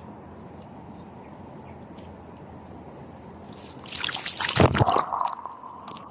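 Shallow reservoir water lapping steadily, then, about four seconds in, a loud burst of splashing and sloshing as a released snakehead kicks free into the water and swims off.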